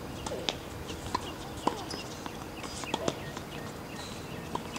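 Scattered sharp pops and knocks of tennis balls being hit and bouncing on nearby hard courts, irregular and several a second at times, with a few short squeaky chirps among them.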